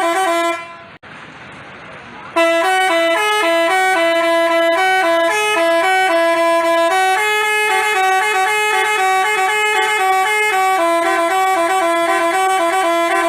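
Telolet basuri bus horn playing a tune in quick stepping notes. After a brief snatch at the start it drops out for about two seconds, leaving only a background hiss. From about two and a half seconds in it plays loudly and without a break.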